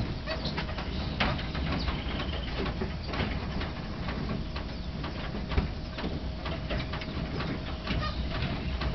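Squirrel monkeys clambering on a chain-link fence: irregular clicks and rattles of the wire mesh, with a few short high chirps.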